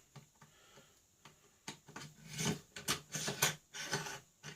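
Mitre gauge being slid into the mitre slot of a small disc sander's table: a string of short clicks and rubbing scrapes starting about a second and a half in.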